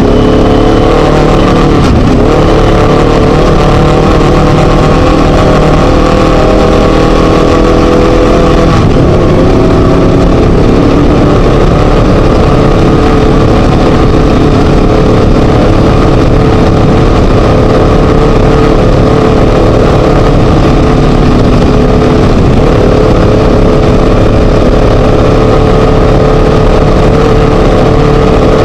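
Class 1 desert race buggy's Scat engine running loud under hard driving, its pitch rising and falling with the throttle, then holding steadier from about nine seconds in.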